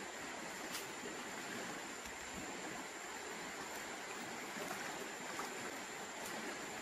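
Steady rush of flowing river water, with a thin steady high tone above it and a faint click about a second in.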